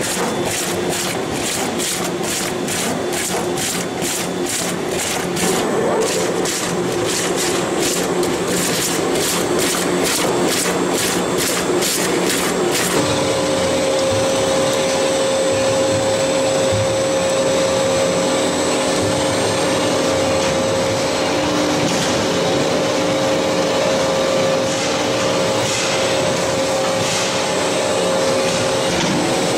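Food-processing machinery running: a pineapple peeling machine with a regular click about twice a second, then, changing suddenly about 13 seconds in, a juice extractor pressing pineapple pulp with a steady motor hum.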